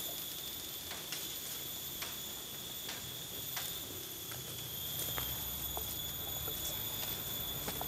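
Faint footsteps ticking on dry leaf litter, a step roughly every second, over a steady high-pitched insect drone.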